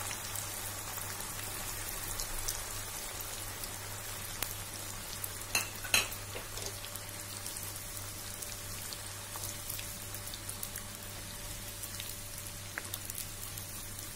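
Sliced onions frying in hot oil in a kadhai, a steady crackling sizzle, stirred with a wooden spatula. A couple of sharper knocks come about halfway through.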